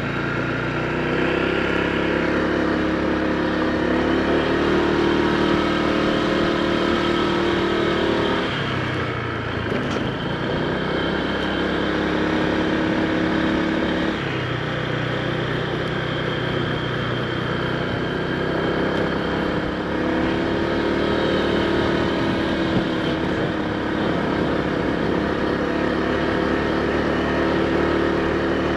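Honda PCX160 scooter's single-cylinder engine running under way, heard from the rider's position. The engine note climbs and falls several times as the throttle is opened and eased off, with brief let-offs about a third of the way in, near the middle, and about two thirds in.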